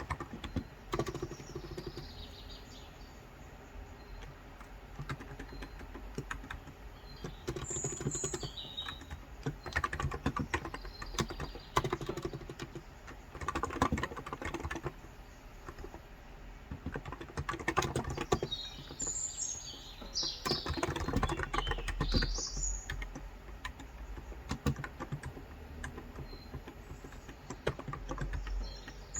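Typing on a COX Endeavor electro-capacitive (topre-style) 35 g tenkeyless keyboard: soft keystrokes coming in bursts with short pauses between them. Birds chirp twice in the background, about 8 seconds in and again about two-thirds of the way through.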